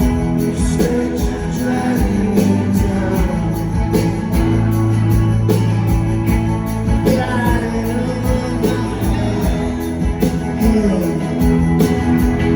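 Live rock band playing: guitars and sustained pitched notes over a steady, evenly spaced beat, with jingling percussion.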